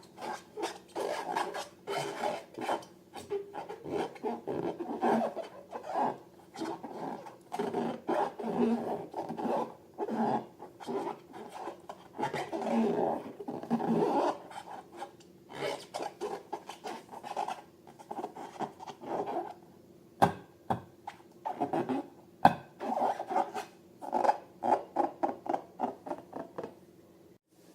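Hands rubbing and squeezing latex balloons: a long run of short rasping, rubbing strokes with brief pauses, and two sharp clicks in the later part.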